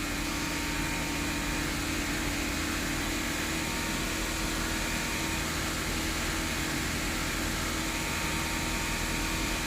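A 2011 Audi A3's 2.0 turbo four-cylinder engine running steadily, held at a set speed while the scan tool runs its evap leak test. It is a constant, even hum and hiss with no change.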